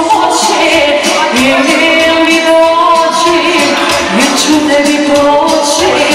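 Live Serbian folk-pop music: an electronic keyboard plays the accompaniment with a regular beat while a woman sings into a microphone.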